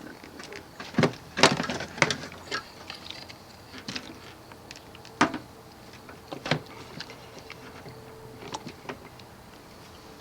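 Irregular clicks, clanks and knocks of hand tools and parts being handled while working on the car, the loudest about a second and a half in and again about five seconds in.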